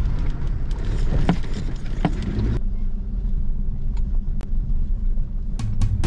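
Four-wheel drive climbing a rough dirt track, heard from inside the cabin: a steady low rumble of engine and tyres, with a few sharp knocks and rattles over the bumps.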